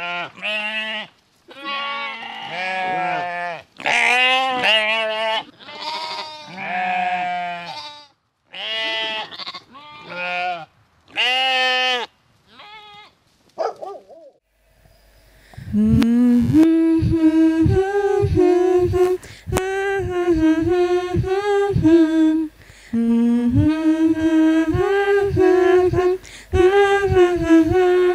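Sheep bleating, about a dozen separate wavering calls one after another. From about halfway a denser run of held, stepping pitched tones with many sharp clicks takes over.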